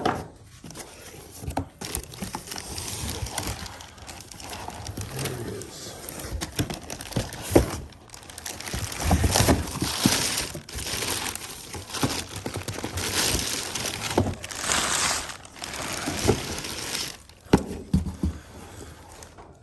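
Packaging being opened by hand: crinkling, rustling and tearing of wrapping, with a few sharp knocks and clacks.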